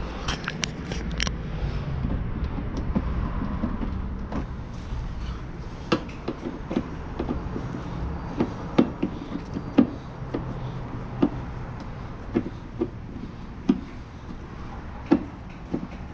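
Scattered sharp clicks and knocks, roughly one a second, from hand tools, screws and plastic trim as the bumper screws are taken out in the wheel well, over a steady low rumble.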